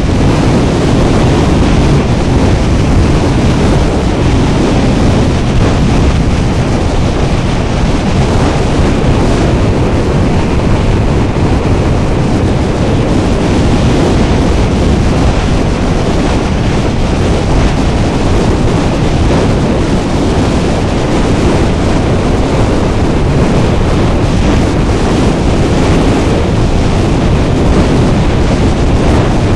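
Steady wind rushing over a motorcycle helmet camera's microphone while riding at road speed, heavy and low, with road and engine noise blended into it.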